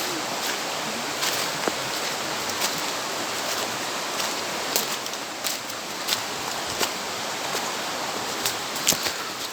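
Steady rush of a rocky mountain stream, with scattered sharp clicks and snaps over it.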